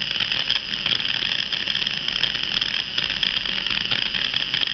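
Electric drill's brushed motor running steadily with a high whirr, its housing open, on a carbon brush that had jammed in its holder and now passes current again.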